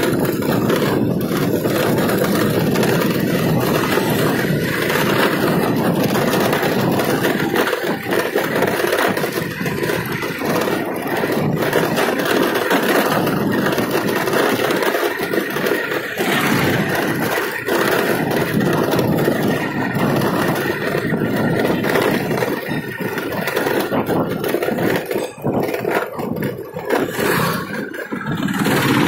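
Motorbike under way, heard from the seat: steady engine and road noise mixed with wind rush.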